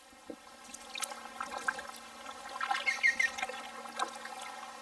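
Kayak paddling: water trickling and dripping off the paddle blades with light splashes. A woodpecker calls with a short run of sharp notes about three seconds in.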